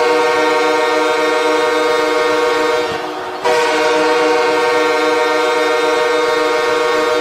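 Ice hockey arena goal horn sounding in two long, loud blasts of a steady multi-note tone, the first ending about three seconds in and the second starting about half a second later.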